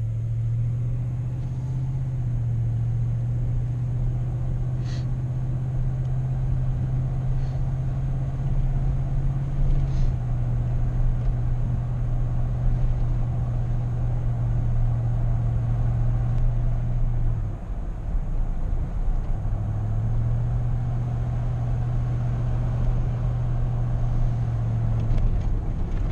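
Car engine and road noise while driving: a steady low drone that drops away for a couple of seconds about two-thirds through, then picks up again.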